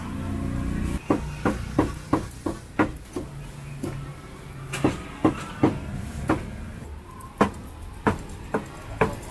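Cleaver chopping meat on a wooden block: a quick run of about eight sharp chops, a short pause, then more strikes at uneven spacing.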